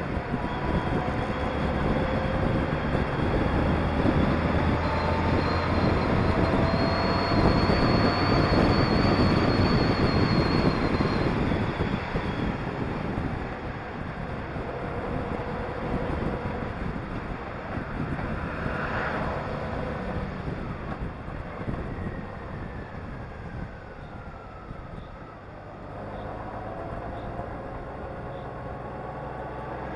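Honda Gold Wing motorcycle under way, engine and wind rush heard from on the bike. The engine pitch rises and the sound grows louder in the first half as it accelerates, then eases off and falls as it slows for a bend, picking up again near the end.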